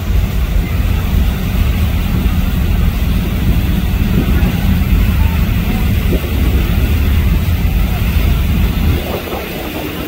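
Steady low rumble on the deck of a moving passenger ferry: wind buffeting the microphone over the drone of the ferry's engine and its churning wake. It eases slightly about a second before the end.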